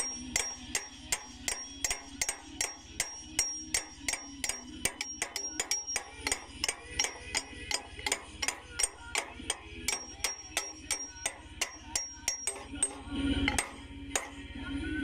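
Repeated hammer blows on steel, about three a second and very even, each with a high metallic ring. About 13 seconds in the strikes pause for a louder, duller sound, then a couple more blows follow.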